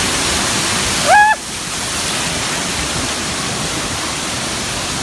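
Steady rush of falling, splashing water, with a brief high-pitched cry about a second in.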